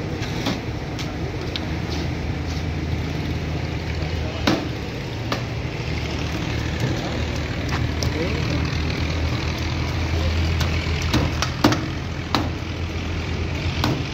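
Meat cleaver chopping fish on a wooden block: irregular sharp chops a second or several apart, the loudest about four and a half and eleven and a half seconds in, over a steady low hum.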